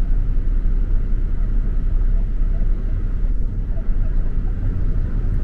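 A steady, loud low rumble with no breaks or distinct events.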